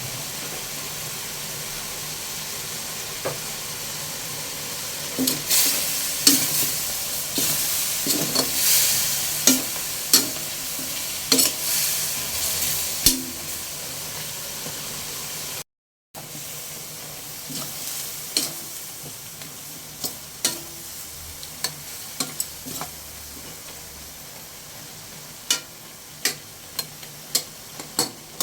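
Chicken feet sizzling in a pan while being stirred, with sharp clicks and knocks of the utensil against the pan over a steady hiss. The clatter is busiest in the first half, and the sound drops out for a moment near the middle.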